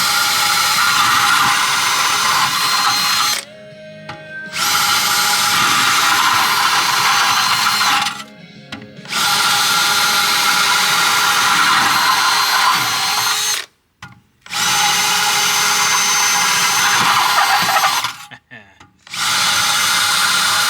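Power drill boring into the honeycomb core of a diesel particulate filter, run in five bursts of a few seconds each with short pauses between. The filter core is collapsing and breaking apart in the center, so the bit drops through easily.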